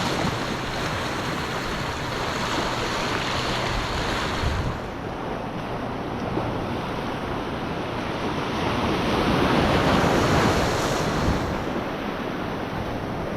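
Ocean surf washing in, with wind on the microphone; a wave swells louder about nine seconds in and eases off a couple of seconds later.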